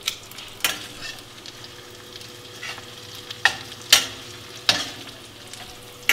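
Corn tortilla pieces frying in coconut oil in a stainless pan, a steady sizzle, with a metal utensil clacking sharply against the pan about six times as the pieces are stirred and turned.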